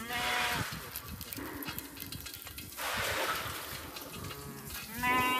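Sheep bleating: one call right at the start and another, wavering in pitch, near the end, with rough noise between.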